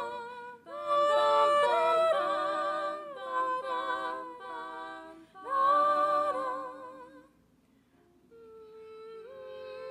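One girl's voice multitracked into several-part a cappella harmony, singing held notes with vibrato. The voices stop about seven and a half seconds in, and a softer sustained chord comes in about a second later.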